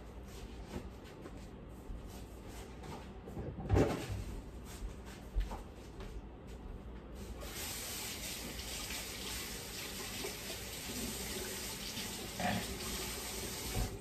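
A kitchen sink tap running, a steady rush of water as hands are washed under it, starting about halfway through and shutting off abruptly at the end. A few knocks come first, about four seconds in.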